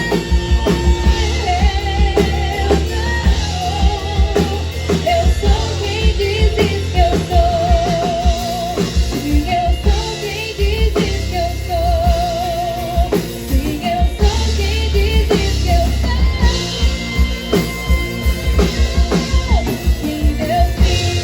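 Song with a woman's voice singing with strong vibrato over a drum kit and heavy bass, played through a sound system built with car audio amplifier modules.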